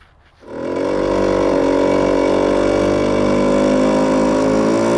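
Vespa scooter engine running at steady, raised revs, cutting in about half a second in and edging slightly higher in pitch near the end.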